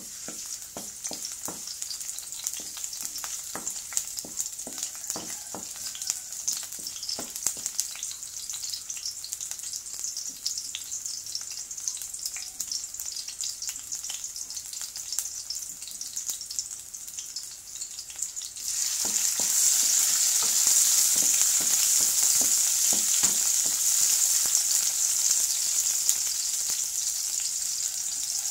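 Chopped garlic sizzling in hot oil in a metal wok, with a spatula scraping and knocking against the pan as it is stirred: the sauté that starts a chicken adobo. About two-thirds of the way through, the sizzle suddenly gets louder and fuller as sliced onion goes in, and the stirring knocks come again.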